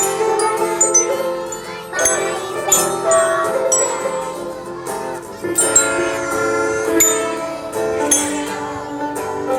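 Music: a song with many bright, struck bell notes ringing out over sustained accompanying tones.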